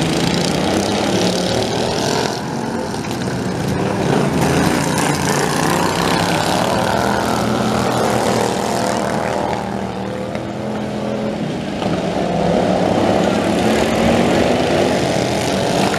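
Several racing lawn tractors' small engines running together on a dirt track, their pitch rising and falling as they circle, with the sound dipping briefly twice.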